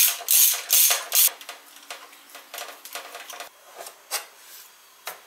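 Socket ratchet wrench undoing a motorcycle radiator's top bolt: loud ratcheting rasps on each back-swing, about two a second, then quicker, lighter ratcheting that fades as the bolt frees. A couple of lone clicks near the end.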